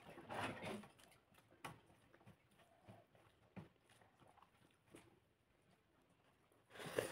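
Faint eating sounds: fingers mixing and squeezing cooked rice on a plate, with small mouth and chewing noises and a few soft clicks. Brief louder handling sounds come just after the start and again at the very end.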